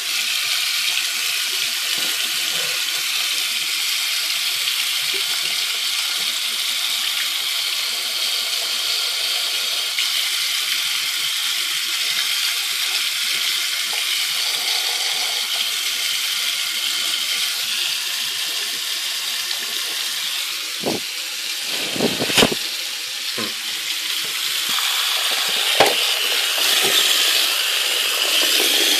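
Tap water running steadily from a faucet into a sink and splashing over a rifle magazine held in the stream. A few short knocks come about three quarters of the way through.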